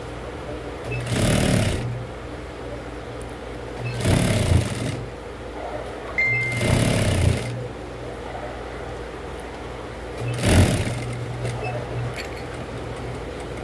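Industrial lockstitch sewing machine stitching through canvas in four short runs of about a second each, with its motor humming steadily in between.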